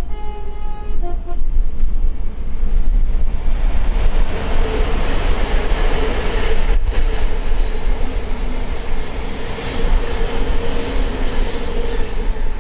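Class 700 Thameslink electric multiple unit passing at speed. A brief two-tone horn sounds at the start. A rush of wheel, rail and air noise then builds from about three seconds in, with a steady electric whine running under it.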